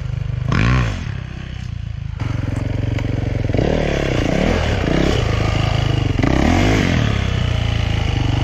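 Motocross dirt bike engine running and revved in several short bursts, its pitch rising and falling, as the bike is hopped up and over a fallen log.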